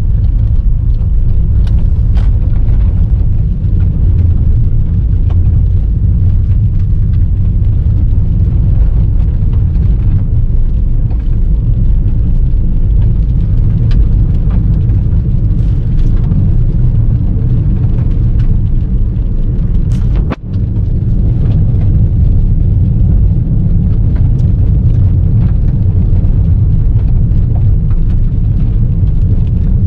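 Passenger car driving on a gravel road, heard from inside the cabin: a loud, steady low rumble of tyres and engine, with scattered clicks of loose gravel hitting the car. The sound briefly drops out about twenty seconds in.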